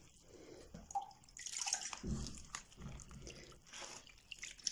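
Brined grape leaves being pressed down tightly by hand into a jar full of brine: quiet, irregular wet squishes and small sloshes of liquid.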